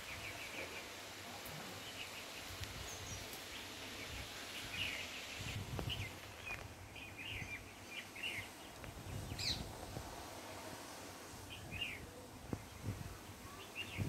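Strong wind gusting through trees, buffeting the microphone in uneven low rumbles, while a bird chirps again and again.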